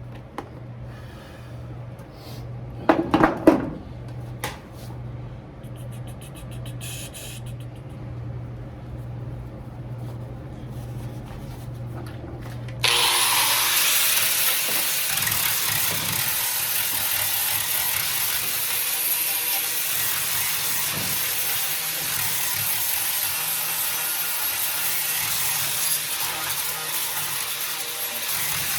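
A few knocks and clatter over a low steady hum, then about halfway through a power tool starts abruptly and runs steadily at full speed during bodywork on the car's rocker panel.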